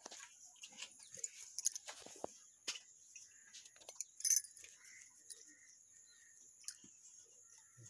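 Cow being milked by hand into a steel pot: scattered short squirts and clinks against the metal, the sharpest about four seconds in, over a steady high insect drone.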